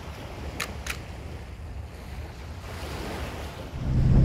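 Waves washing on a shore with wind, steady and moderately quiet, with two faint ticks about half a second in. Near the end a loud, steady low hum cuts in.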